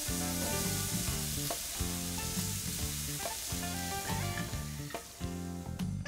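Chicken wings sizzling on a grill over hot coals, with background music playing under it; the sizzle thins out near the end.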